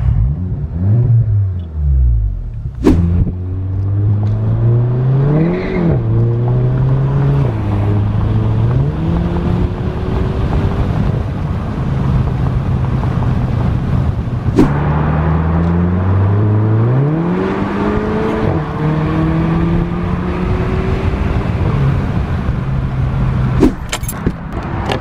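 Turbocharged 2.0-litre four-cylinder of a Mk7 Volkswagen GTI heard from inside the cabin, accelerating away: the engine note climbs, then drops back at each gear change, several times over. Two sharp clicks, about 3 s and 14.5 s in.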